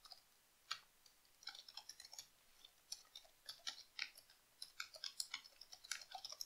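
Faint, irregular clicking of computer keyboard keys being typed, sparse at first and quicker from about a second and a half in.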